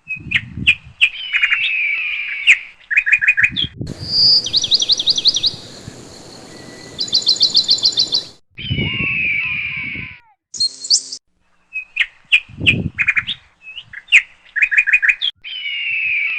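Birds chirping and calling: sharp repeated chirps and descending whistled notes, with two fast trills of high notes in the middle. The sound comes in short sections that start and stop abruptly.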